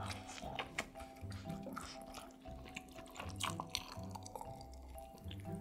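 Mouth sounds of chewing a soft steamed pizza bun, with small wet clicks, then sips of a drink swallowed from a glass, over soft background music.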